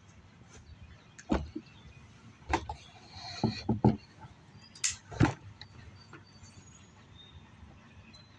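Suppressed Ruger SFAR semi-automatic rifle in 6.5 Creedmoor firing a quick string of sharp reports, a second or so apart, over a few seconds.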